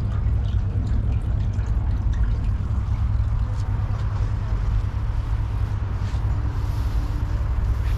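A steady low rumble with the faint trickle of a shallow stream running over pebbles.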